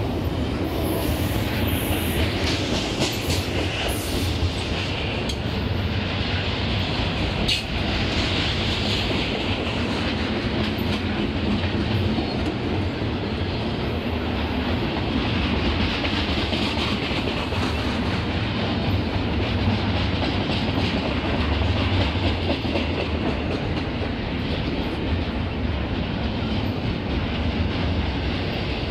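Double-stack container cars of a Canadian Pacific intermodal freight train rolling past close by: a steady rumble and clatter of steel wheels on rail that does not let up.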